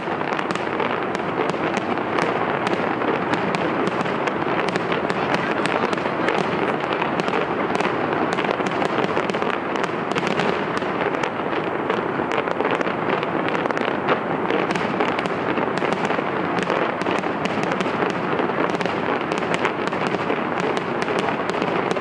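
Fireworks show: a dense, unbroken barrage of bursts and crackles, many pops a second with no let-up.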